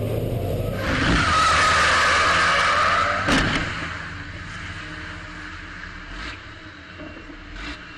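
Onboard sound of a racing truck's diesel engine running, with a loud skidding hiss setting in about a second in and lasting about two and a half seconds. A sharp knock ends the hiss, then the sound falls back to a quieter engine drone with a few faint knocks.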